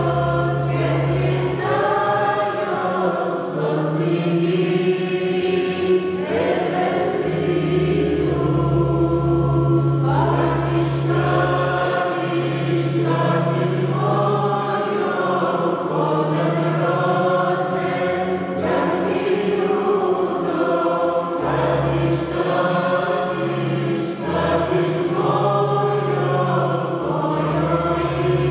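Mixed choir of men and women singing a Christmas carol, accompanied on an electronic keyboard that holds low sustained bass notes under the voices.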